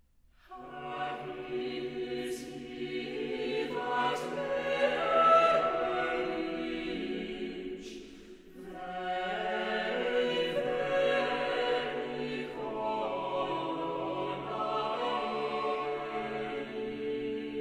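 Small mixed-voice choir singing unaccompanied in a church. The voices enter about half a second in, break off briefly near eight seconds, and then go on singing.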